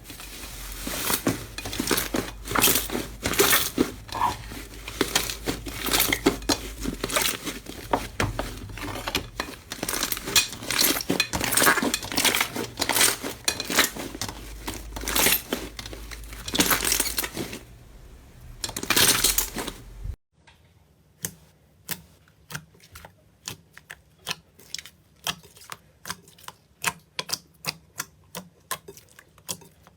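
Slime being squeezed and worked by hand, giving a dense run of crackling, popping and squishing. About twenty seconds in it cuts to a quieter clip of rapid, sharp clicks and pops.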